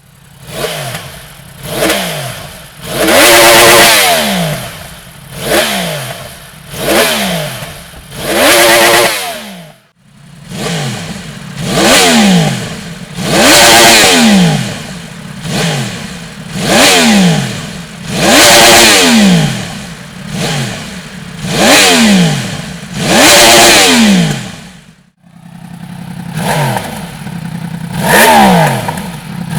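Yamaha YZF-R1's crossplane inline-four engine revved in repeated sharp throttle blips through the exhaust, each rev climbing and falling back toward idle. The revving stops briefly twice, about 10 and 25 seconds in.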